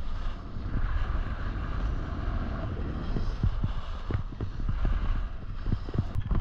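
Wind buffeting an action camera's microphone during a fast ski descent, with skis scraping over firm groomed snow and irregular low thumps as they chatter across the surface.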